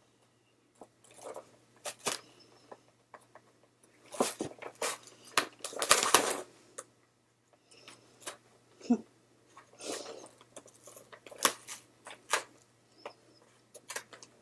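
Toy packaging being worked at by hand: irregular crinkles, crunches and clicks of plastic and cardboard, with a denser stretch of crackling around the middle.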